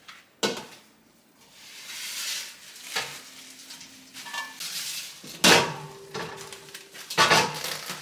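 Whole napa cabbages in plastic bags being handled and set down on a kitchen counter: plastic crinkling and rustling, with several knocks and a short metallic ring from a stainless bowl, the loudest knocks about five and a half and seven seconds in.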